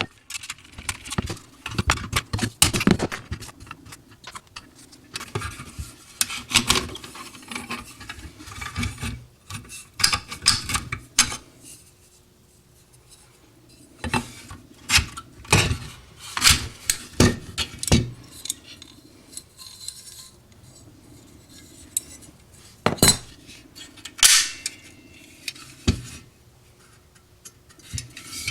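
Sharp metallic clinks and taps at irregular intervals, with short quiet spells, from tools working on the rivets of a small sheet-metal toy pop gun while it is being taken apart.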